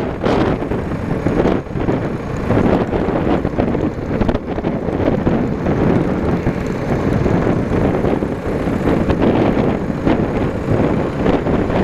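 Wind buffeting the microphone of a moving motorcycle, with the bike's running mixed into the rush.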